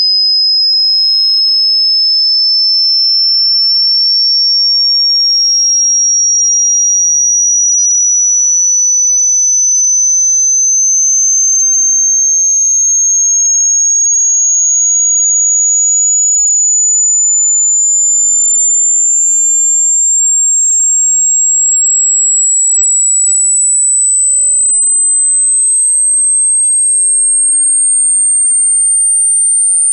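Hearing-test sine tone: a single high, pure tone gliding slowly and steadily upward in pitch. It is a frequency sweep that checks how high the listener can still hear.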